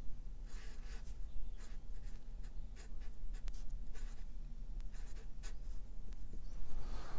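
Sharpie felt-tip marker writing on paper: a run of short scratchy strokes as a word is written out.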